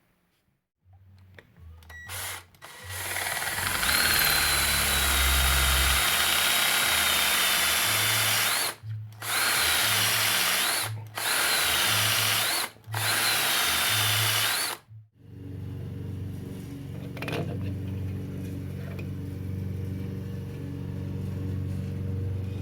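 Power drill boring into a plum-wood pen blank, running in four loud runs separated by brief stops, with a steady high motor whine that rises each time the bit comes free. Afterwards a quieter steady hum continues.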